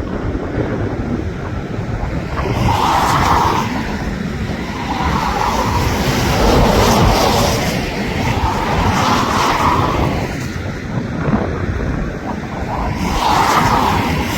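Strong, gusty wind buffeting the phone's microphone over the rushing noise of a landing airliner, swelling and easing about every two seconds.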